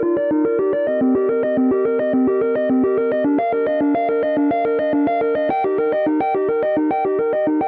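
An iOS 17 iPhone ringtone playing: a synthesizer keyboard pattern of quick, evenly repeated notes, about seven a second, with the melody stepping down about a second in.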